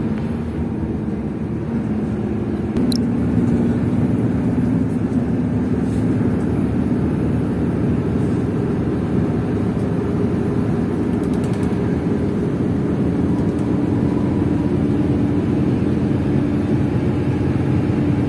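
Hino RK coach's engine and road noise heard from inside the cabin at speed, a steady drone with the engine note slowly rising as it keeps accelerating.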